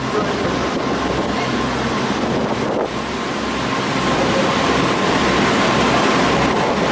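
Sightseeing cruise boat under way: its engine running steadily with water rushing along the hull and wind on the microphone, a little louder from about halfway through.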